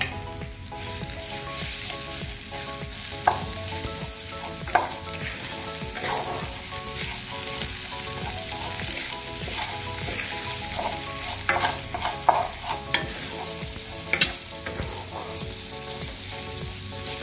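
Rice sizzling as it is sautéed in oil in a pot with garlic and onion, stirred with a wooden spoon that scrapes and knocks against the pot now and then.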